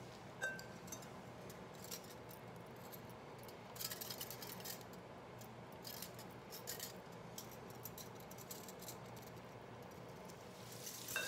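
Faint clicks and scrapes of a wire whisk being wiped clean with a rubber spatula over a foil pan, most of them in the middle, against a faint steady low hum; a hiss rises near the end.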